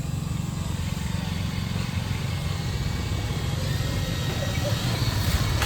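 An engine running steadily with a fast, low pulsing beat, growing a little louder near the end.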